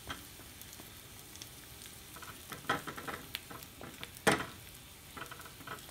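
Broccoli sizzling in hot oil in a small frying pan, with a spatula stirring it and scraping or knocking against the pan a few times. The loudest knock comes about four seconds in.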